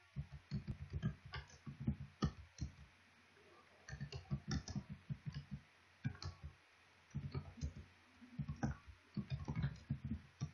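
Typing on a computer keyboard: quick runs of keystroke clicks broken by short pauses.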